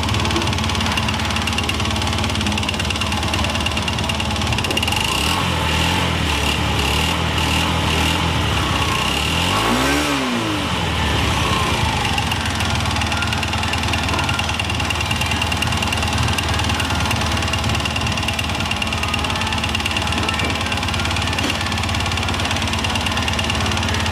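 Honda Gyro Canopy TA03's 50 cc single-cylinder four-stroke engine running at idle, revved once about halfway through, its pitch rising and dropping back within about a second. It carries the abnormal noise from around the crankshaft that the owner reports on this scooter, which also smokes white.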